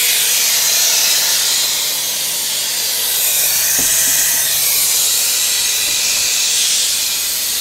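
A steady, loud hiss of rushing noise with a faint low hum beneath it, and one brief knock a little after the middle.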